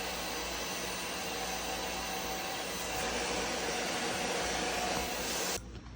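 Bissell Little Green Max Pet portable spot cleaner's suction motor running steadily while extracting a wet spot, then switched off abruptly about five and a half seconds in.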